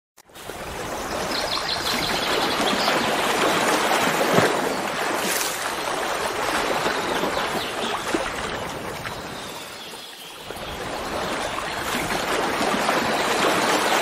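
Flowing water rushing steadily. It fades in at the start and dips briefly about ten seconds in.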